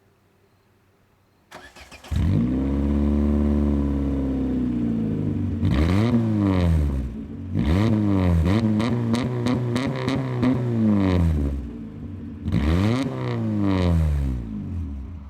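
A small 1.4-litre car engine heard at its exhaust, started about a second and a half in and revved: one long rise and fall of the revs, then a string of quick throttle blips, then two more revs before the sound falls away near the end.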